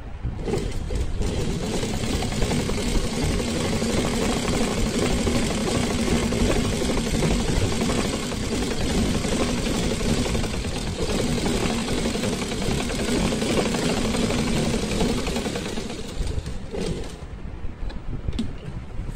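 Domestic sewing machine running steadily, stitching through layered fabric, with a steady hum under the needle noise. It starts about half a second in, eases briefly partway through, and stops about two seconds before the end, after which a few light clicks follow.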